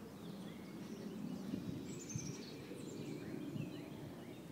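Outdoor ambience: a low, steady background noise with a few faint, short bird chirps scattered through it.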